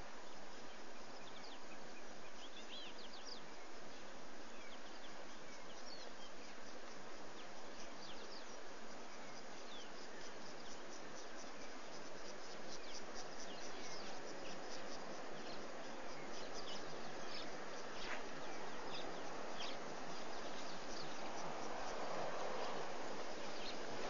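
Outdoor waterhole ambience through a webcam microphone: a steady hiss with scattered small bird chirps and insect calls, and a run of fast, evenly spaced ticks through the middle. A rushing noise grows near the end.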